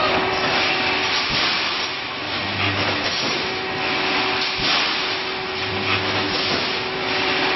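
Wire mesh welding machine running with steady mechanical noise and hiss. A low hum comes on twice for under a second, and there are a few short knocks.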